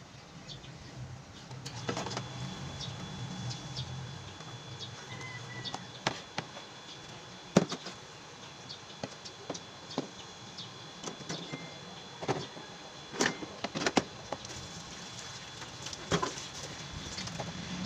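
Irregular sharp knocks and clatters from a refrigerator being cleaned out, over a low steady hum. The loudest knocks come about halfway through and twice more a few seconds later.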